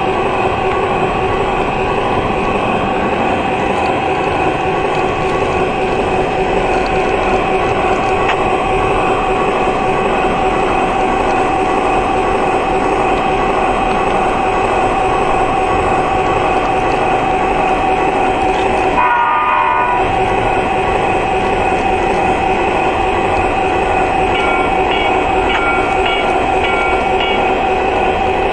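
Model train running on a layout: a steady motor whine over the rumble of wheels on the track. The sound breaks briefly about 19 seconds in, and faint repeating high tones come in near the end.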